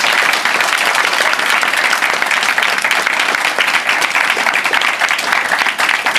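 A group of people applauding, a dense, steady patter of hand-clapping that eases off slightly near the end.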